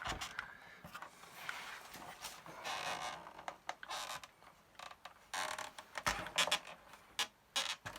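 Internal parts of a Commodore MPS-801 dot-matrix printer being unhooked and worked forward by hand: scattered clicks, with a scraping rustle about three seconds in.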